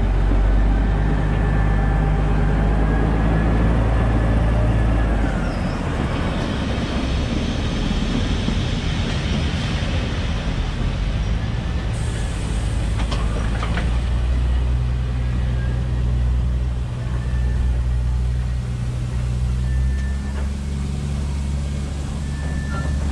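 A rail vehicle's engine idling: a steady low hum whose pitch shifts a couple of times.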